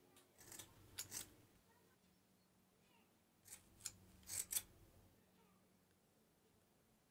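Scissors snipping through hair: a few short crisp cuts about a second in, then another cluster of four around four seconds in.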